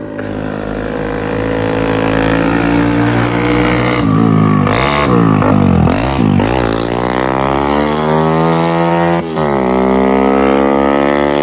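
Motorcycle engine running loud under throttle: its pitch wavers about halfway through, then climbs steadily as it accelerates, drops suddenly, as at a gear change, and holds steady near the end.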